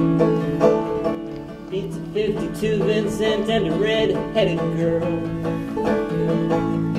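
Banjo and acoustic guitar playing a folk song together in a steady picked rhythm. Through the middle a man's voice sings a short wavering line over them.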